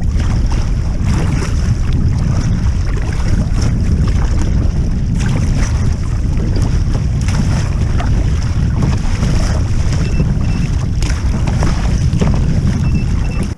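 Strong wind buffeting the microphone in a loud, steady rumble, with water splashing against a kayak.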